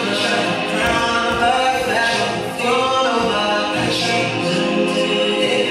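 Recorded song with a sung vocal line over its accompaniment, played as the backing track for a dance routine.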